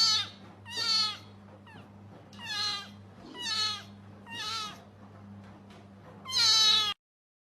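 A pet animal giving a string of short, high-pitched calls, about one a second, with the last one the longest and loudest. The sound cuts off abruptly near the end.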